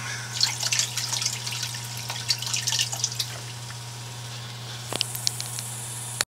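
Water dripping and splashing, a quick run of drips over the first three seconds and a few more about five seconds in, over a steady low hum. The sound cuts off suddenly near the end.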